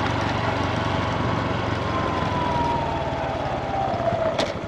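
Honda Super Cub motorcycle engine running on the move over road and wind noise, with a whine that falls steadily in pitch as the bike slows. A sharp click sounds near the end.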